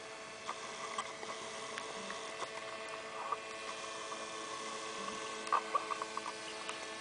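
Steady, faint drone of a distant RC model airplane's motor and propeller overhead, with scattered light clicks and a small cluster of them about five and a half seconds in.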